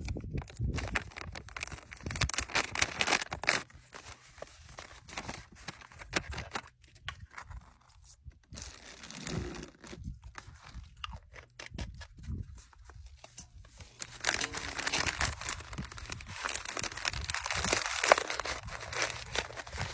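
Plastic bag of an MRE flameless ration heater being torn open and crinkled in the hands. Water is poured into it from a bottle about halfway through, and near the end the bag is crinkled steadily as it is handled again.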